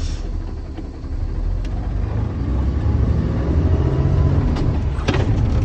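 A heavy truck's diesel engine pulling the truck forward slowly from a stop, heard from inside the cab. The low rumble swells as the engine takes up the load, and a brief sharper noise comes about five seconds in.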